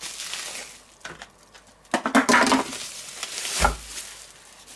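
Paper wrapping rustling and crinkling as it is peeled back from a raw pork neck, with a dull thump about three and a half seconds in as the meat is set down on the wooden cutting board.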